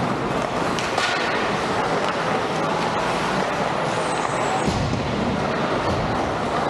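Steady rushing noise of an ice hockey game in a rink, with a few faint clicks scattered through it.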